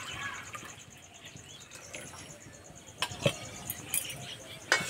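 Milk pouring from a steel bowl into an iron kadai, trailing off in the first moment, followed by a few scattered sharp clicks and knocks in the second half.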